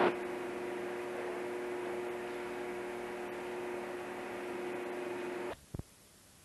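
Steady machinery hum with a constant droning tone, which cuts off abruptly about five and a half seconds in, leaving near silence with one brief click.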